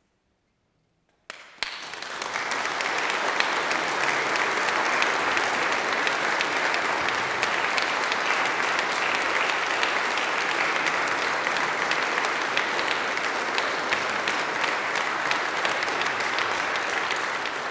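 About a second of near silence, then an audience breaks into applause: dense, steady clapping that begins to ease off near the end.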